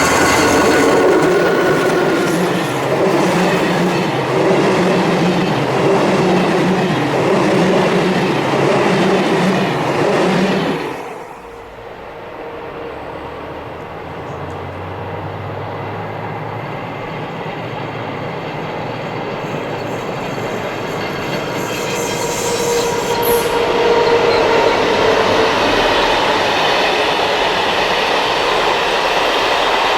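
An electric passenger train passes at low speed with wheel clatter over the rail joints. The sound cuts off abruptly about eleven seconds in, and another train is then heard approaching, growing steadily louder.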